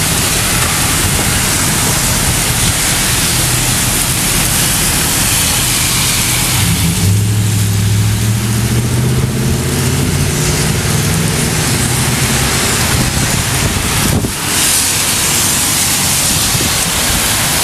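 Heavy wind and rain rushing steadily and loudly, with wind buffeting the microphone. About seven seconds in a low steady drone joins it for a few seconds, then fades.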